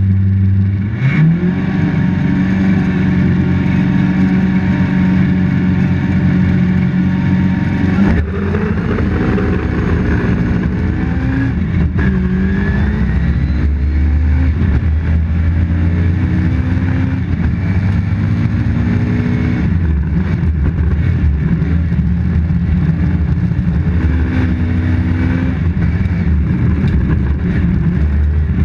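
Toyota Corolla GT rally car's engine heard from inside the cabin. It is held at steady revs for the first several seconds, then about eight seconds in the car launches and accelerates hard, the revs rising and dropping at each gear change.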